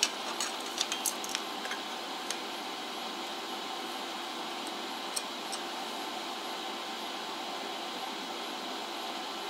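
A few light metallic clicks and taps in the first two seconds and two more near the middle, as steel pieces and the stick welder's electrode holder are handled, over a steady hum. No welding arc is heard.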